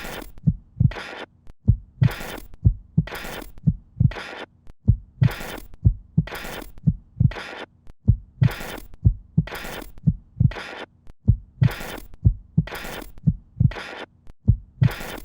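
Rhythmic, heartbeat-like soundtrack: deep thumps, each paired with a short hissing burst, about two a second, over a faint steady hum.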